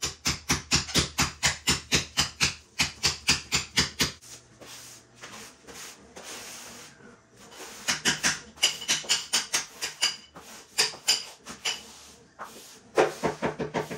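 Hammer striking a steel chisel to chip away concrete, in fast, even blows of about four to five a second. The blows stop about 4 s in, and a soft scraping hiss of a broom sweeping rubble on the concrete floor follows. The hammering resumes in shorter runs around 8 to 10 s in.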